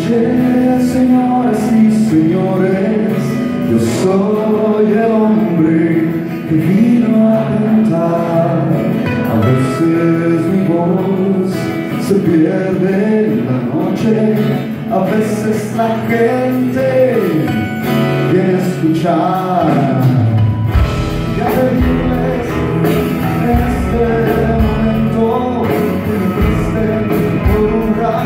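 Live band music led by acoustic guitars, with keyboard, and a deep bass line and drums coming in about two-thirds of the way through.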